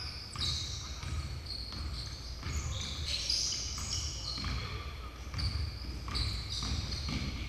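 A basketball game on a hardwood gym floor: a ball bouncing, players' feet pounding, and many short high sneaker squeaks as players cut and stop.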